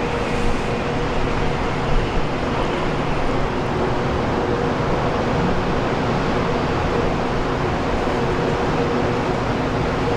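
Jet airliner engines running loud and steady: an even rushing noise with a steady low hum through it.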